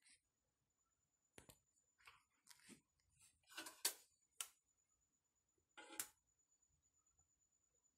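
Near silence, broken by a few faint, short clicks and taps, the clearest about four and six seconds in.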